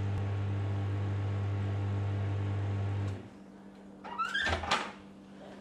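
Samsung microwave oven running with a steady low hum while heating a bowl of coconut oil. The hum cuts off suddenly about three seconds in as the cycle ends, and about a second later comes a short burst of sound as the door is opened.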